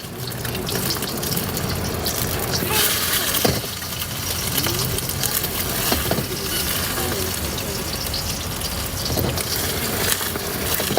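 Steady hiss of food frying in oil on a street-food stall's wok or griddle, with a few short knocks.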